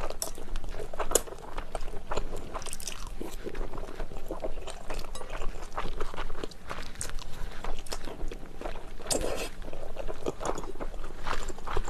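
Close-up slurping and chewing of wide, chewy Chinese glass noodles: a run of irregular wet smacks and sucking sounds.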